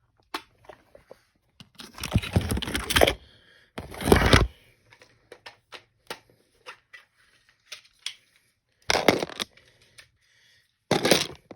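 Small plastic clicks and rough scraping and rustling from handling a model hopper car while prying out its removable plastic coal load, with four louder scraping bursts among scattered light clicks.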